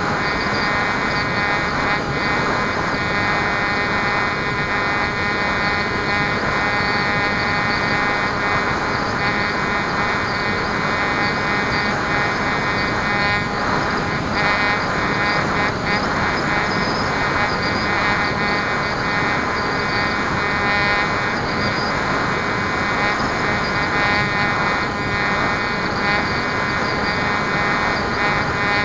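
Bixler foam RC plane's electric motor and pusher propeller running steadily in flight, heard from the onboard camera as a constant buzzing whine over the rush of air.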